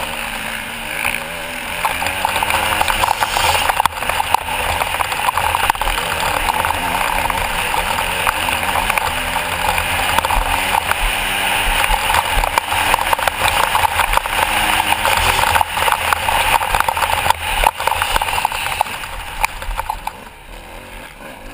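Motocross bike engine running hard under load, its pitch climbing and falling again and again as the rider opens and shuts the throttle and changes gear. It backs off near the end.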